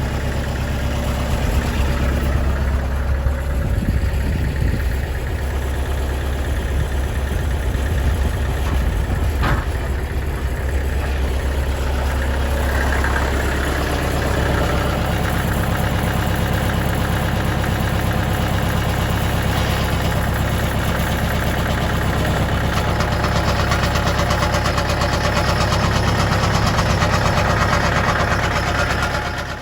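An engine running steadily, with more high-pitched noise building from about twelve seconds in; it cuts off suddenly at the very end.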